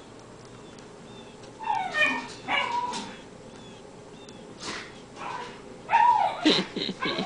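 Cairn terrier puppy barking, yipping and whining excitedly: a few calls about two seconds in, then a louder run of yelps near the end.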